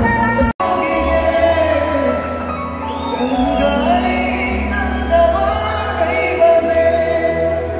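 Live music through a PA system: a man singing into a microphone over amplified backing, with sustained notes and sliding runs. The sound drops out for an instant about half a second in.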